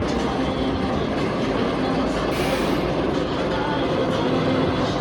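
Empty roller coaster train on test runs, rumbling steadily along the steel track of the RMC hybrid coaster Wildcat's Revenge, with a brief hiss about halfway through.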